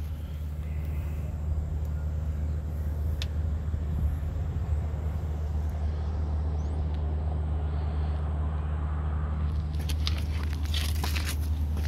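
Pickup truck engine idling steadily, a low even hum, with a few light scuffing taps near the end.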